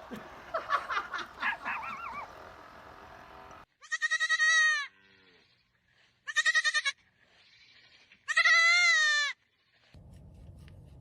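Three loud, wavering animal bleats, each a shaky high-pitched call. The first and last last about a second, and the middle one is shorter.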